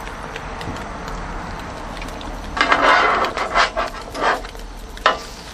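Beef bacon and eggs sizzling on a steel Blackstone griddle top. A metal spatula scrapes and chops across the griddle in a louder stretch from about two and a half to four and a half seconds in, then gives a single sharp clack near the end.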